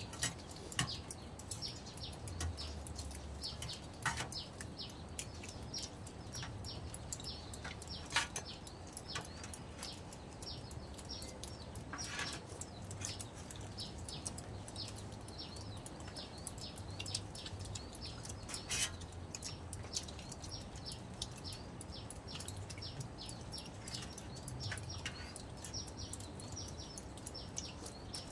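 Small birds chirping continuously in quick short calls, with a few louder sharp clinks and slurps of people eating with spoons from a metal pot.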